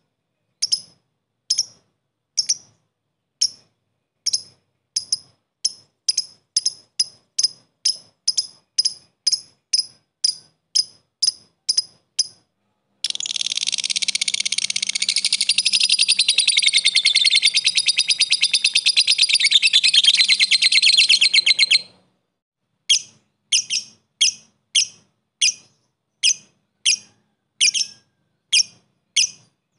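Blue masked lovebird calling. First come sharp single chirps, about two to three a second ("ngetik"). About halfway through they give way to a loud, rapid chattering trill held for about nine seconds ("ngekek"), and then the single chirps resume.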